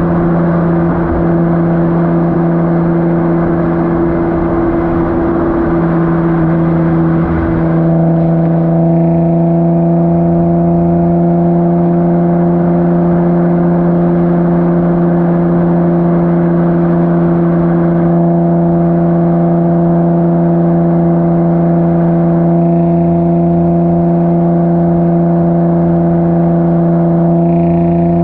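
Infiniti G35's 3.5-litre V6 through a Motordyne Shockwave exhaust with ART pipes, droning at a steady engine speed, heard close to the tailpipes. A rougher rushing layer underneath fades about eight seconds in, leaving a clean, even drone.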